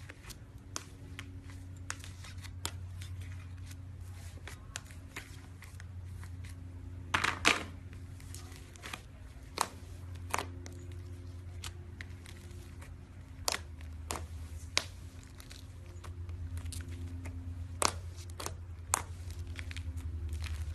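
Slime being played with by hand, giving scattered sharp clicks and pops over a low steady hum.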